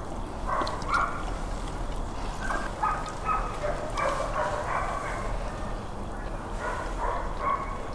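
Outdoor ambience with a low steady hum and scattered short, pitched animal calls, each about a quarter second long.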